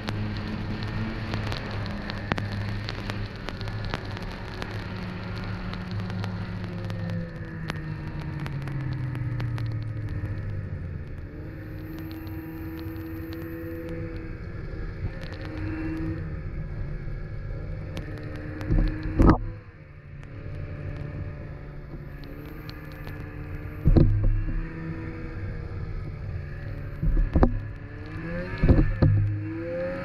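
Snowmobile engine running as the sled rides along, its note sliding down and back up with the throttle. A handful of loud thumps break in during the second half.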